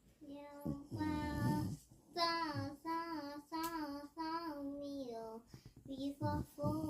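A child singing a tune in short phrases of held notes, with brief breaks between them.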